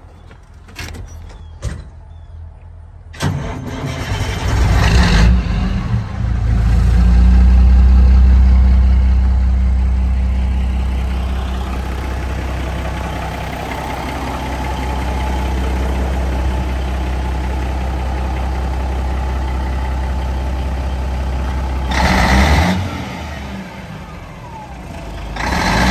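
A few clicks, then the diesel engine of a 1988 Peterbilt 379 big rig cranks and starts about three seconds in. It runs loud at first and settles to a steady idle, then is revved twice near the end.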